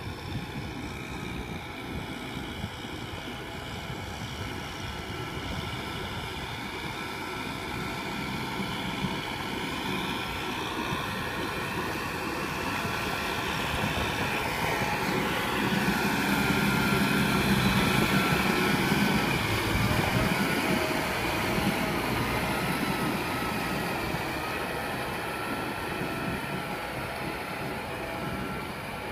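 Kubota M6040SU tractor's diesel engine running steadily under load while pulling a rotary tiller through flooded paddy mud. It grows louder as the tractor comes close about halfway through, then eases off as it moves away.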